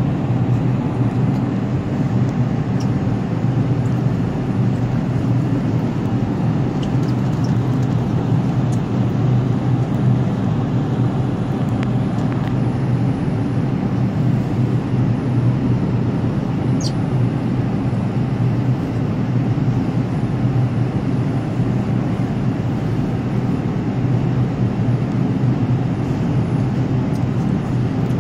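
New York City subway train running steadily through a tunnel: a constant loud rumble of wheels and running gear on the rails, with a few faint high squeaks.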